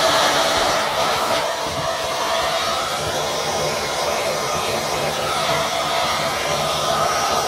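Vacuum cleaner running steadily, its hose nozzle moving over the inside of an open amplifier: a constant rush of air with a steady motor whine.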